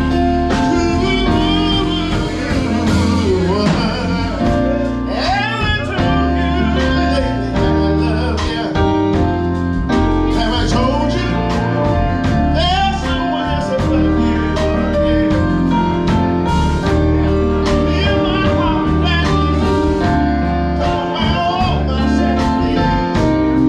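Live band playing a slow soul-gospel song, with steady bass and drums under a singer's voice.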